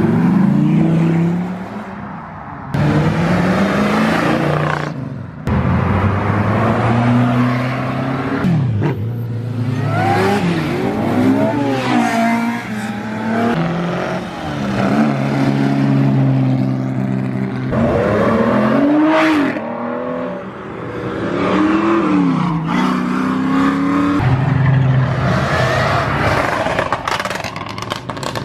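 Performance cars revving and accelerating away one after another, engine pitch rising and dropping through gear changes, with abrupt jumps between separate cars.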